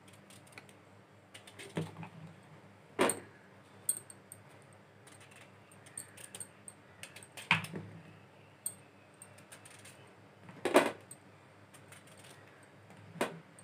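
Kitchen knife slicing through a peeled raw mango held in the hand, with slices falling onto a stainless steel plate: about half a dozen separate crisp cuts and taps, the loudest about 3, 7.5 and 11 seconds in.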